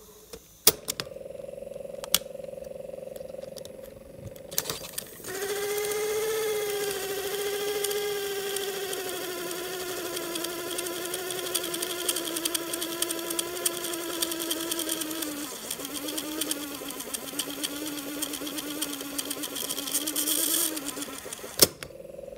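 Grundig CB 100/E cassette tape drive running with an opened cassette: a steady motor hum with a couple of mechanical clicks. About five seconds in it switches to a much louder whine that slowly falls and wavers in pitch over a dense crackle of ticks. A click near the end brings back the steady hum.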